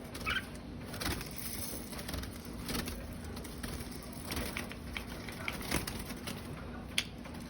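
A bird's short warbled note just after the start, then scattered sharp clicks and taps over a steady low hum.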